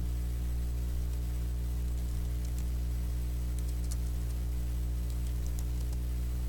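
Steady low electrical hum with a stack of even tones, with a few faint computer-keyboard keystroke clicks now and then, mostly in the second half.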